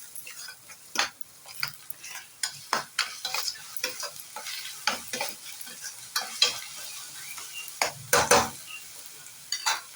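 Spatula stirring and scraping in a pan of onions and ginger-garlic paste frying in oil, irregular clicks and scrapes over a light sizzle, with a louder scrape about eight seconds in. The paste is being sautéed until its raw smell cooks off.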